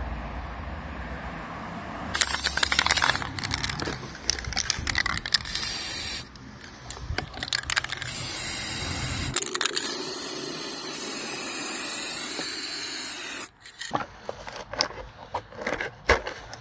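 Workshop construction sounds in short successive stretches: tools running and scraping on the wagon's wood and metal parts, then sharp clicks and clattering knocks near the end.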